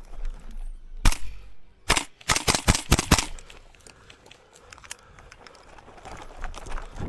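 Airsoft gun shots: a single sharp shot about a second in, then a quick string of about eight shots.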